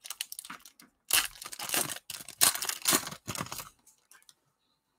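Plastic wrapper of a Prizm basketball card pack being torn open and crinkled in three crackly spells, stopping about three and a half seconds in.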